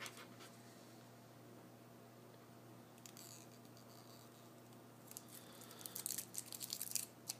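Clear tape being peeled and handled: a quiet stretch, then for about two seconds near the end a run of light crinkling and crackling.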